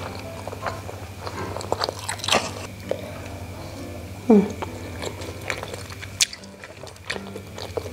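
Close-miked chewing and wet mouth clicks of someone eating sticky rice dumpling (bakcang). A short falling "mm" from the eater comes about four seconds in and is the loudest sound, and a sharp click follows a couple of seconds later.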